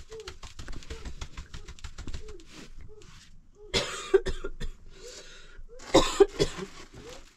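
A person coughing twice, about four seconds in and again about six seconds in, after a quick run of light taps.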